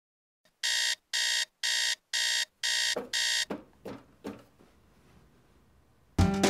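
Electronic alarm beeping: six even, loud beeps about two a second, stopping after about three seconds, followed by a few fainter sounds. Music starts near the end.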